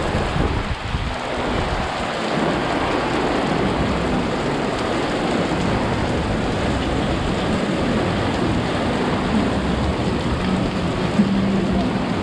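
Heavy rain falling steadily, drumming on an umbrella directly overhead and splashing on the wet pavement.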